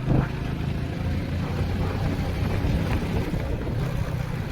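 Motorcycle running steadily while being ridden, a low engine drone mixed with wind and road rush.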